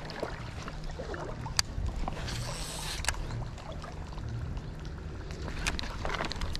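Creek water splashing and sloshing, with a couple of sharp clicks, the loudest about a second and a half in and another about three seconds in.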